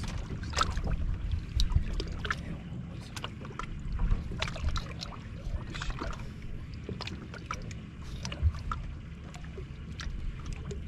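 Scattered sharp clicks and knocks aboard a fishing boat over a steady low rumble, while a hooked bass is played up to the boat toward the net.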